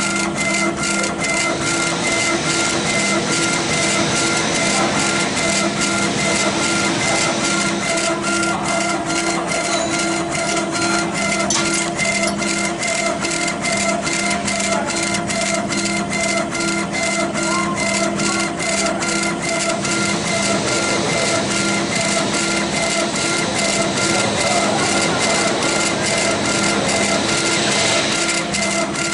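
Laser engraving machine raster-engraving a stone slab: the head's drive motors whine steadily at several pitches while the head shuttles back and forth, with a short clack at each change of direction, a few times a second.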